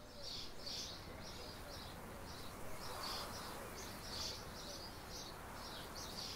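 Birds chirping faintly in short, high calls, about three a second, over a soft outdoor background hiss.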